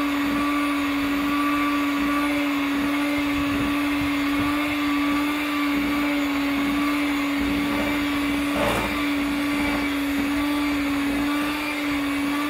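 Electric hand mixer running steadily at one speed, its beaters turning in brownie batter in a glass bowl. A single short knock comes about two-thirds of the way through.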